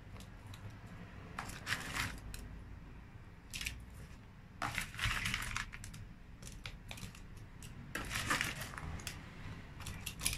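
Cubes of watermelon rind tipped from a plastic tub and pressed by hand into a clear jar: irregular clicks, knocks and rustling scrapes, with louder bursts about two, five and eight seconds in.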